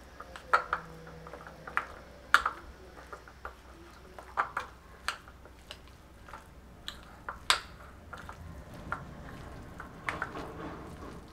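Metal spoon stirring a thick, wet mixture of prawn paste, banana flower, grated coconut and mustard paste in a glass bowl, with irregular sharp clinks of the spoon against the glass. Near the end the mixing turns softer and denser as the mixture is worked by hand.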